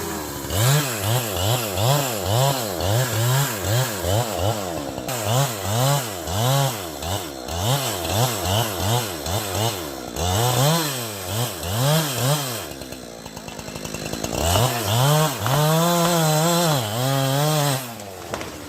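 Chainsaw cutting into a tree trunk, its engine revving up and down in quick pulses about twice a second. The engine drops lower for a moment about two-thirds of the way in, is then held at high revs for a few seconds, and falls off near the end.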